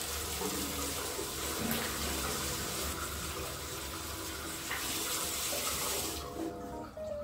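Water running steadily from a bathroom mixer tap into a ceramic sink basin, shut off with the tap lever about six seconds in.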